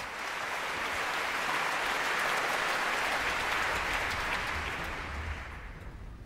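Concert-hall audience applauding, swelling over the first couple of seconds, then dying away over the last second or so.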